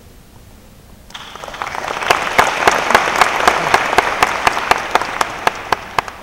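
Audience applause that starts about a second in and swells, with loud single claps keeping an even beat of about four a second through it, then fades near the end.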